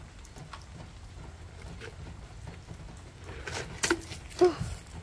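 An upturned plastic cup weighted with stones is knocked over with a stick onto gravel: a low rumble, then a short clatter of knocks and gravel crunching about three and a half seconds in. A brief voice sound comes in just after.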